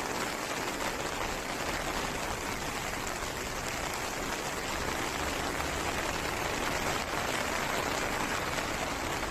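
Steady rushing noise of heavy rain and a swollen, muddy river running in flood.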